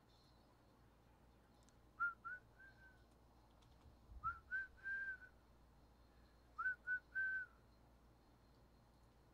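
A person whistling a short tune: three brief phrases of about three notes each, each note sliding quickly up into a clear steady pitch. The last note of the second and third phrases is held a little longer.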